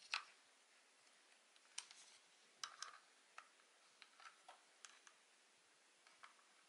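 Faint, irregular clicks and taps of the small plastic and metal parts of a Soviet Agidel electric shaver being handled and fitted during reassembly, the sharpest just after the start and a short cluster a little before the middle.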